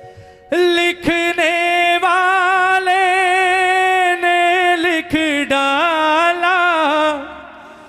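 Devotional Hindi bhajan: a single voice sings long, held, melismatic notes with wavering ornaments. It starts about half a second in and fades away near the end.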